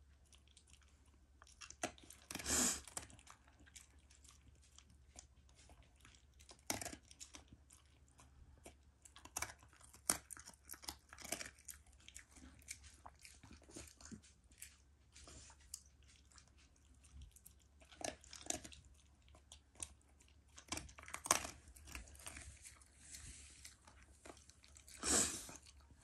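Black Shiba Inu eating its meal, with irregular chewing and crunching and a few louder bites scattered through.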